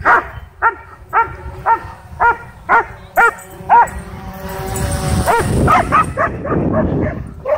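A dog barking excitedly at a drone flying over the dog park, in a steady run of about two barks a second. The barking breaks off for a second or so, then a few more barks come over a rising rush of noise.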